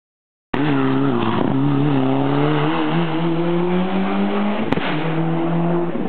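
Mitsubishi Lancer Evolution IX rally car's turbocharged four-cylinder engine pulling hard through a hairpin, its pitch wavering and then slowly climbing. It starts abruptly about half a second in, and there is a sharp click a little before the end.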